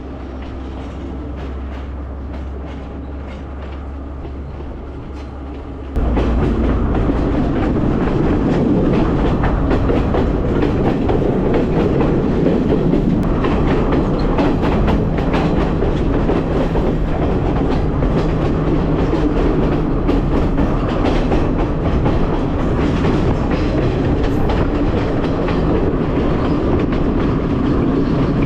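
Passenger train running, heard at its open carriage door: a steady rumble of wheels on rail with clickety-clack over the rail joints. The level jumps suddenly louder about six seconds in.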